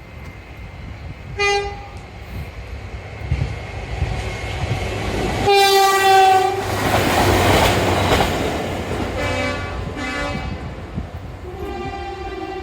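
British train horns sounding four times, with the rumble and rushing wheel noise of a passing train: a short toot, a louder blast that sets off a surge of clattering, then a quick two-note call and a longer held note near the end.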